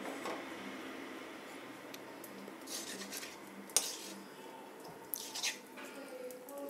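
Metal spoon scraping and clinking against a steel kadhai as ghee is spooned in: a few soft scrapes and one sharper clink about four seconds in, over a faint steady hiss.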